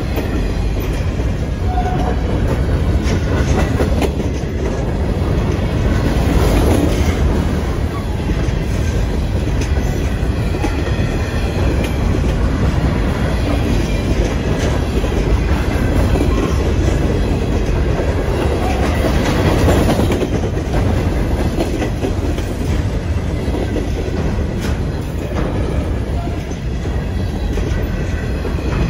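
Freight train cars rolling past at close range: a steady, loud rumble of steel wheels on rail, with repeated clickety-clack as the trucks cross rail joints.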